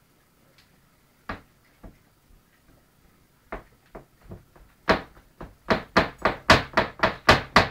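Old English Sheepdog scratching an itch with a hind leg, the leg knocking against its plastic dog bed. A few scattered knocks come first, then about three-quarters of the way in a fast, steady run of about four knocks a second.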